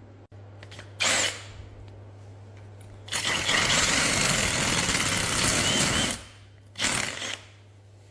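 Power drill running: a brief burst about a second in, a steady run of about three seconds, then another brief burst near the end. A low steady hum sits underneath throughout.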